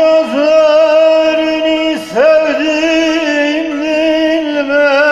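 A man singing long, held notes with a wavering vibrato to his own bağlama (long-necked Turkish saz) accompaniment. The voice slides up into each phrase, and a second phrase begins about two seconds in.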